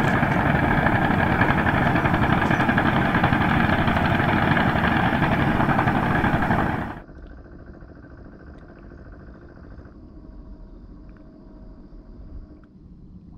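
A motor engine running steadily and loudly; about seven seconds in it cuts off abruptly, leaving a much fainter steady hum.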